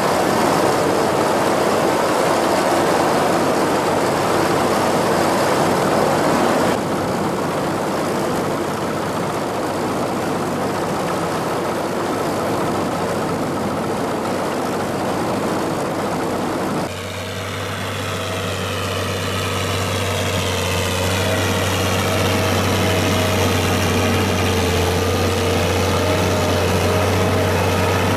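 Engines of tracked tractors running steadily as they work a flooded rice paddy. The sound changes abruptly about 7 seconds in and again about 17 seconds in. After that a steady low drone with a held higher tone runs on.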